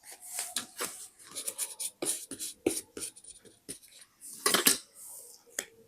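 Paper and craft materials handled close to the microphone: irregular taps, crinkles and rubbing, with a louder cluster of taps and rustling about four and a half seconds in.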